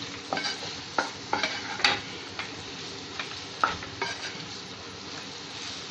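A spatula stirring paneer gravy in a nonstick pan, with irregular scrapes and knocks against the pan over a steady sizzle. The strokes die away about two-thirds of the way through, leaving the sizzle.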